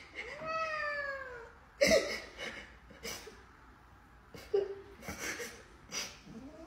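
A domestic cat gives one long meow that falls in pitch, about a second long, near the start. A woman's fake sobbing and whimpering follow in short bursts.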